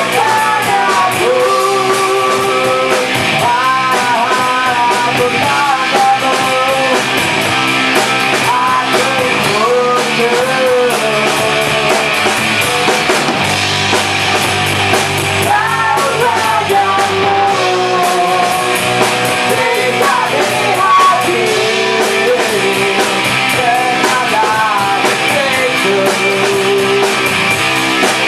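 Rock band rehearsing live, with bass guitar and electric guitar through amplifiers and a singer's voice carrying the melody over a steady, loud full-band sound.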